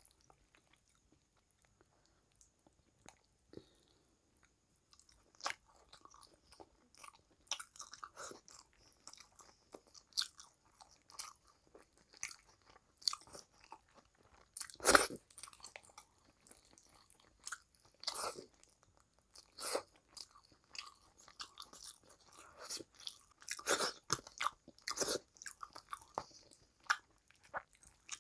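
Close-miked eating by hand: chewing and crunching of rice and fish curry, with sticky clicks and smacks from the mouth and fingers. It is quiet for the first few seconds, then short, scattered crackles follow, the loudest about halfway.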